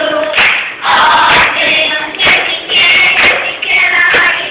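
A children's choir singing loudly, many voices overlapping with calls and shouts.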